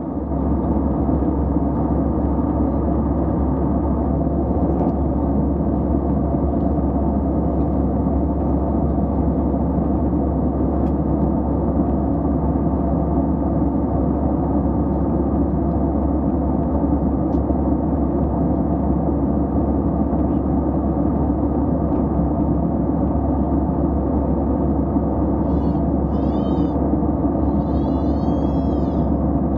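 Steady cabin noise of an airliner cruising at altitude: the engines and airflow make an unbroken low rumble. Near the end, two brief high sounds rise and fall in pitch.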